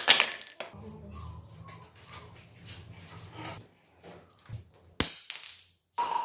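Steel parts clinking and clanking as a motorcycle is dismantled: a long steel pivot bolt slid out of the frame with quick metallic clicks and a short ring at the start, then scattered tool ticks and a single ringing metal clang about five seconds in.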